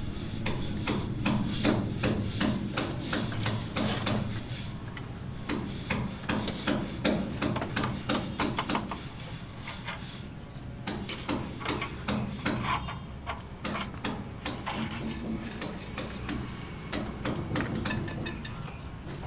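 Hammer blows struck in quick, irregular runs, with a short break about ten seconds in.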